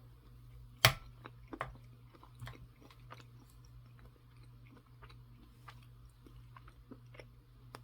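Close-up chewing of cold, dry canned beef and rice: small moist clicks of the mouth throughout, with one sharper click about a second in. A faint low hum runs underneath.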